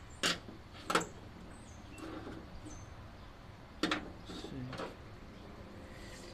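Four short, sharp knocks and clicks, spaced irregularly: tools or parts being handled during engine work.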